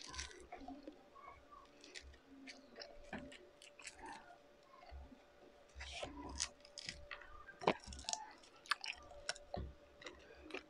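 Close-miked chewing and mouth sounds as food is eaten by hand: soft, irregular smacks and clicks, with a faint steady hum underneath.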